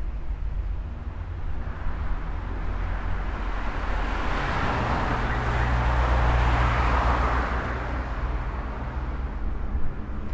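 A car passing close by, its engine and tyre noise swelling from about two seconds in, loudest around the middle, then fading away. A short knock near the end.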